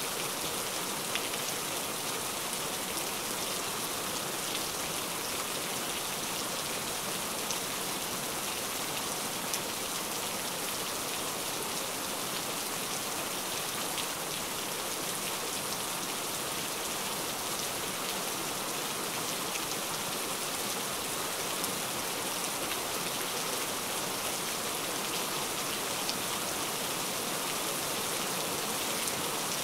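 Heavy rain pouring down in a steady, dense hiss, with scattered drop ticks.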